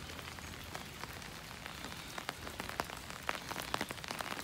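Steady rain falling on a paved path, with many sharp individual drop ticks among the hiss that come more often in the second half.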